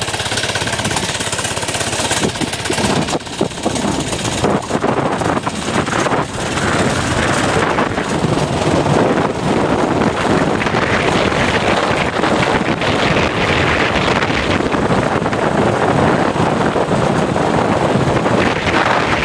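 Mini bike's small single-cylinder engine running while riding, mixed with wind rushing over the helmet camera's microphone; the sound grows louder about six seconds in and then holds steady.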